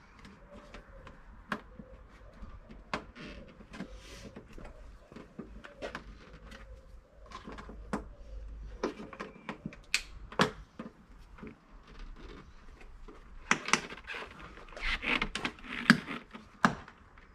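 Plastic trim removal tool prying at the chrome window trim of a BMW F31 Touring, with irregular clicks and snaps of the trim and its clips. The clicks grow denser and loudest near the end.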